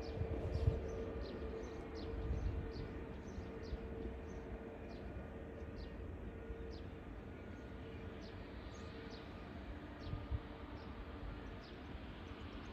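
Distant Airbus A320-family airliner taxiing, its jet engines giving a steady low rumble with a steady hum. Many short, high, downward-sliding bird chirps repeat throughout.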